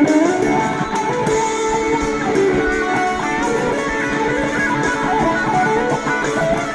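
Electric guitar played through a BOSS BD-2 Blues Driver overdrive pedal with the Keeley Phat mod, improvising a lead line in D with sustained notes and a few string bends.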